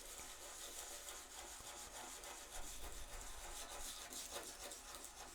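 Sandpaper rubbing on a wooden chess piece in quick, irregular strokes: a faint dry scratching, sanding down the burn marks left by cutting.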